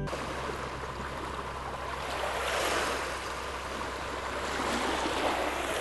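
Water rushing in waves, a steady wash that swells and ebbs twice, with a faint steady low hum underneath.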